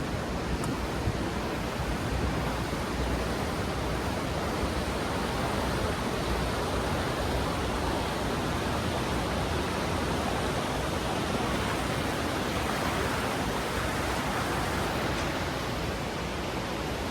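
Steady rush of creek water, an even noise with no breaks.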